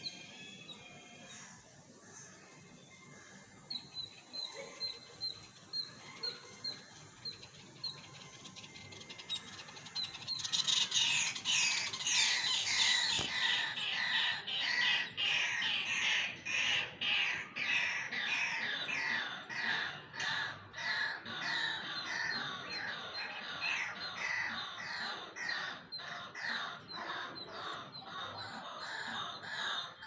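White-throated kingfisher calling: a loud, fast chattering series of short descending high notes that starts about ten seconds in and keeps going, after several seconds of faint, evenly spaced high chirps.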